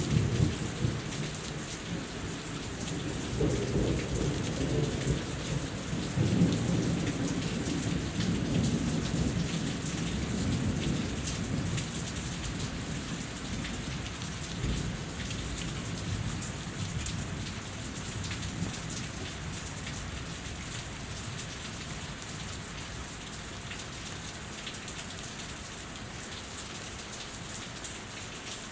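Steady rain falling and dripping off a house, with a long roll of thunder that builds in the first few seconds, peaks, and rumbles away to nothing by about halfway through.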